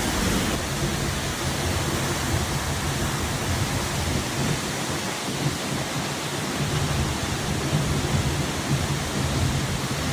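Seljalandsfoss waterfall's steady rush of falling water, an even hiss over an uneven low rumble.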